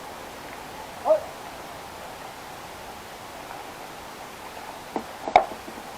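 Steady hiss of open-air ambience at a baseball field, with a short distant shout about a second in and a sharp crack with a brief ring near the end.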